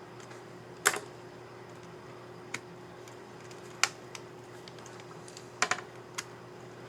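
Asus ZenBook UX301L laptop keyboard keycap clicking under fingers as it is fitted onto its scissor mechanism and pressed: about seven short, sharp plastic clicks at uneven spacing, the loudest about a second in.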